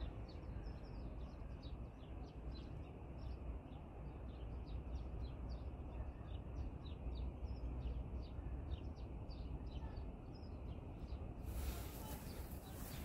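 Many small birds chirping steadily, several short chirps a second, over a low steady rumble. A rushing hiss comes in near the end.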